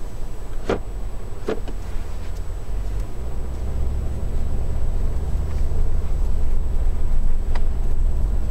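Toyota LandCruiser 200 driving off, its engine and road rumble building as it picks up speed, with two short knocks about a second in.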